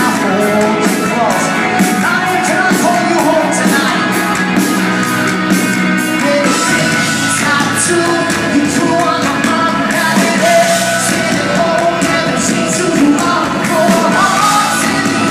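Live pop-rock band music with a lead vocal singing over guitars and drums, loud and steady.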